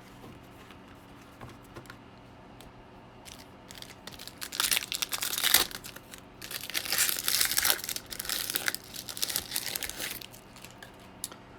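A trading-card pack wrapper being torn open and crinkled, in irregular bursts starting about four seconds in.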